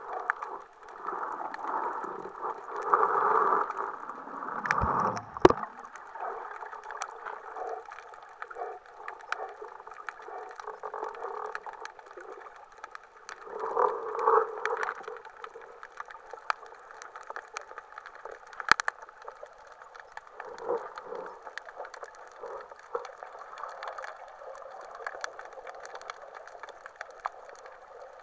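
Underwater water noise heard through an action camera's waterproof housing on a breath-hold spearfishing dive: a muffled rushing that swells and fades as the diver moves. A few sharp clicks and knocks sound through it, the loudest about five seconds in.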